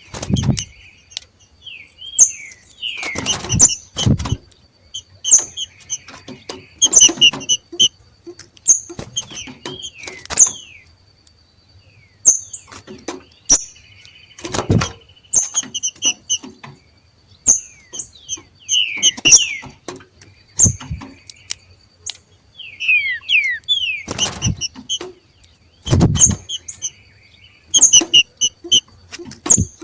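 Two green-winged saltators giving their 'macheado': runs of short, sharp, high calls, some as quick downward slides, repeated every second or two, the breeding-season call that stirs other males to sing. A few loud thumps or knocks break in among the calls.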